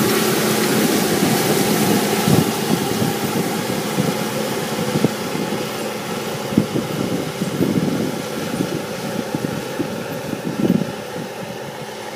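Case IH tractor's diesel engine running steadily under load while it pulls a disk harrow through dry stubble, fading as the tractor moves away. A few short, sharp knocks come through at intervals.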